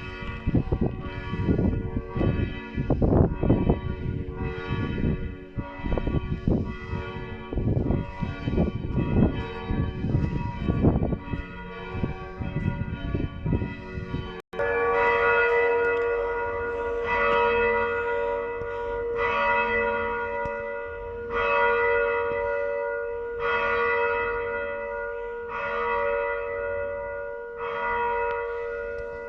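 Church bells ringing. For the first half a heavy, uneven low rumble lies over the bells. After a sudden cut about halfway through, the bells sound clean, with a clear stroke about every two seconds over a steady ringing hum.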